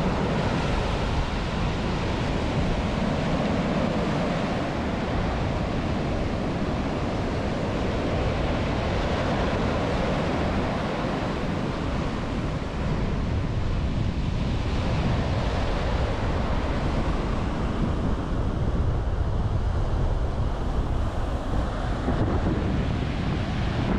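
Surf breaking and washing up a sandy beach: a continuous, steady rush of waves and foam, with wind buffeting the microphone in a low rumble underneath.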